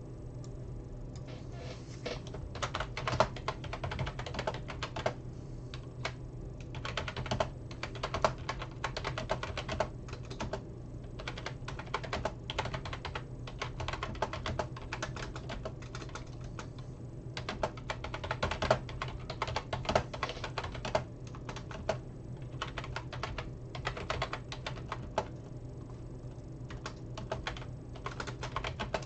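Typing on a computer keyboard: irregular runs of key clicks broken by short pauses, over a low steady hum.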